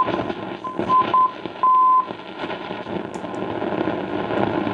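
1937 Philips 461A valve radio receiving the long-wave band through its loudspeaker: hiss and static, with a steady high beep keyed on and off in short and longer pieces during the first two seconds.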